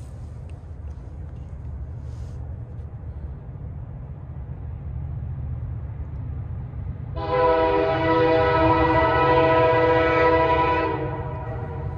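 Horn of a northbound CN freight train led by an EMD SD75I locomotive: one long blast of about four seconds with several notes sounding together, starting about seven seconds in, for the grade crossing. Under it is a low rumble from the approaching train that slowly grows louder.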